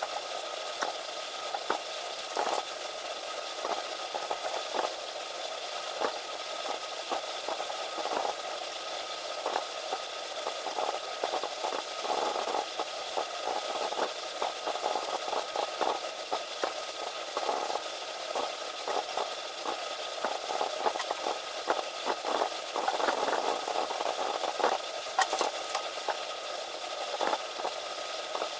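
Felt-tip markers scratching on paper in many short, irregular colouring strokes, with a few sharp clicks near the end.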